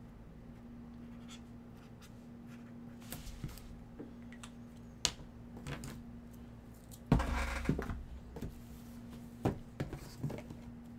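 Permanent marker scratching numbers onto wrapped cardboard card boxes, followed by the stacked boxes being handled and shifted, with a louder scuffle and knock about seven seconds in.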